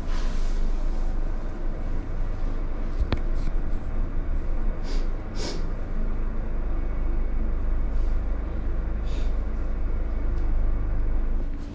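Elevator car descending: a steady low rumble of the car in motion. There is one sharp click about three seconds in and a few brief hissy rustles.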